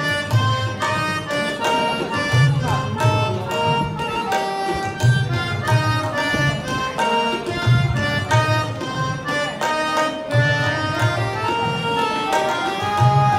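Harmonium and tabla playing an instrumental interlude between sung lines of a Hindi film song. The harmonium carries the melody in held notes while the tabla keeps the rhythm, with deep bass-drum strokes every two to three seconds.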